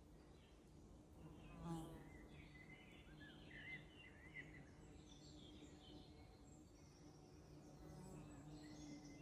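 Flies buzzing with a low hum that comes and goes, swelling briefly about two seconds in as one passes close. Faint songbird chirps and twitters sound behind it, most of them in the middle and near the end.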